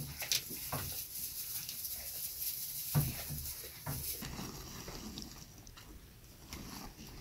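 Goats feeding at a wooden hay trough: rustling and tugging of hay with scattered sharp knocks, the loudest about three seconds in.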